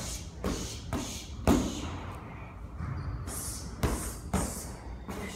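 Boxing-gloved punches landing on handheld kick pads, a quick series of padded hits, the loudest about one and a half seconds in, with a short pause before a few more.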